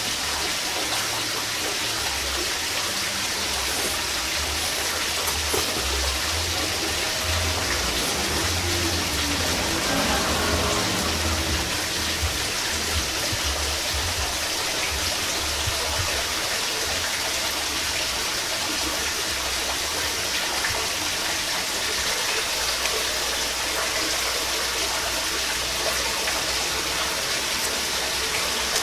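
A steady hiss of rushing water, with soft low thuds now and then.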